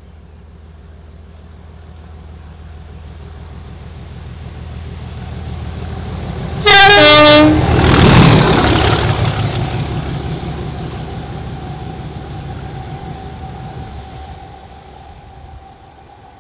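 English Electric Class 37 diesel locomotive approaching and passing, its V12 diesel engine growling louder and louder, then fading away after it goes by about halfway through. Just before it passes it sounds its two-tone horn briefly, a high note then a low note.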